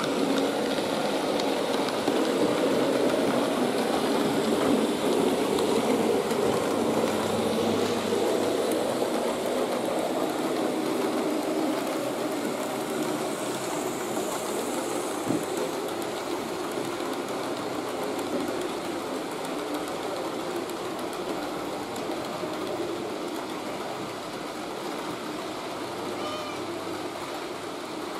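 Model trains running on the layout track: a steady mechanical rumble of locomotive motors and wheels on the rails, slowly getting quieter. The locomotive's digital sound is not switched on, so this is only the mechanical running noise.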